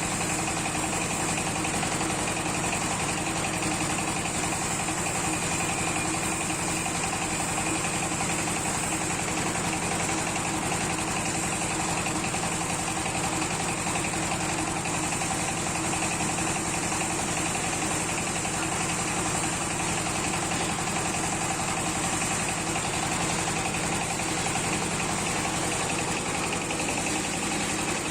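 Motor-driven mustard oil expeller machine running steadily while pressing mustard seed: an even, unchanging mechanical hum.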